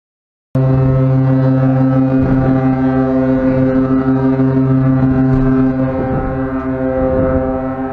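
Cruise ship AIDAperla's horn sounding a long, deep blast that starts suddenly about half a second in and is held steady, the ship's departure signal on leaving its berth.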